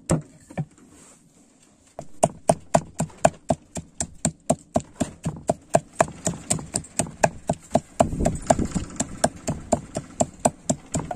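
Wooden pestle pounding chilies, shallots and garlic in a wooden mortar, grinding a spice paste: steady dull knocks about four a second. There are a few strokes at the start, then a short pause, and the steady pounding picks up about two seconds in.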